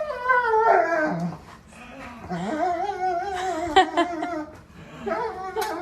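A dog howling and whining in long, wavering notes, the first sliding down in pitch and the later ones held for a second or two.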